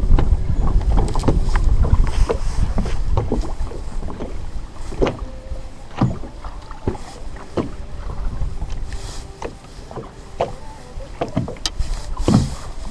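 Small waves lapping and slapping against the side of a fishing boat's hull, with irregular sharp knocks and wind rumbling on the microphone that is loudest for the first four seconds or so and then eases.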